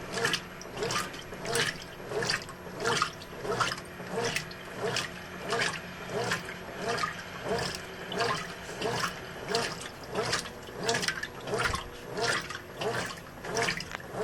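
Brastemp 12 kg top-loading washing machine agitating a load of towels in a medium water level on normal agitation. The water sloshes in a regular swish about one and a half times a second as the agitator reverses back and forth.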